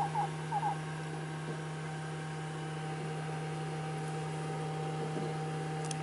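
Steady low electrical hum with a thin, higher steady tone above it; a few short high chirps in the first second.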